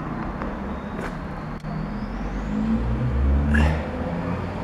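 Road traffic: a motor vehicle's engine rumble swells as it passes about three seconds in, with a short hiss just after.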